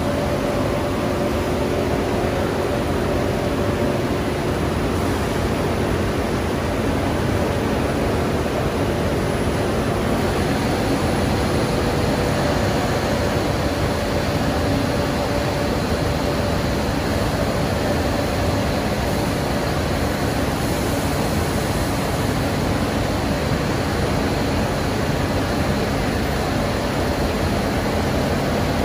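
Extrusion lamination line for BOPP film running: a steady machinery hum with a faint constant whine through it.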